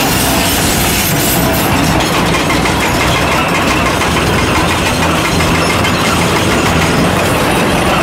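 Heavy excavator working limestone with a rock-breaking attachment: a steady engine drone under a dense, rapid clatter of steel on rock.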